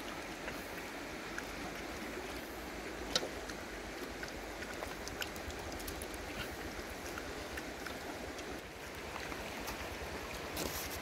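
Puppies eating from a bamboo trough: scattered small clicks of chewing and lapping over a steady rushing background noise.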